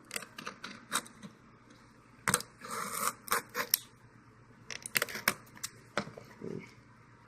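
Hands handling and trying to pry open a glued-shut mailing package: irregular clicks, taps and scrapes, with a short scratchy rustle about three seconds in.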